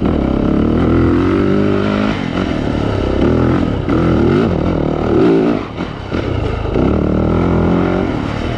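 Dirt bike engine running hard on a trail ride, its pitch climbing and falling over and over as the throttle is opened and rolled off, with a brief drop in revs about six seconds in.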